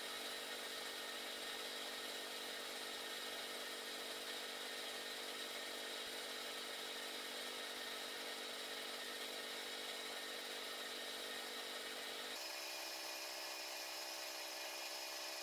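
Gravity-feed paint spray gun spraying clear coat, a steady hiss of compressed air with a hum under it. The tone of the sound shifts about twelve seconds in.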